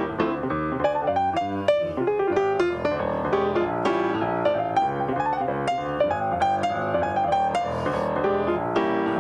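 Grand piano played solo: an instrumental passage of quick notes, one after another without a break.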